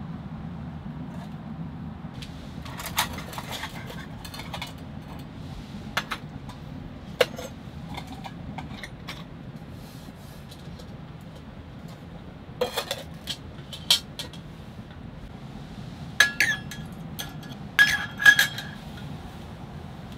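Stainless steel camp cups clinking against each other and their wire hooks: scattered metal taps, a few with a short ringing tone, loudest in a cluster near the end. Under them a steady low rumble.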